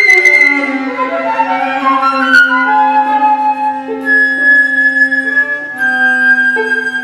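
Flute and viola playing together in a classical duo: a quick falling run of notes, then a low held note beneath long, high flute notes. There is a single short click about two and a half seconds in.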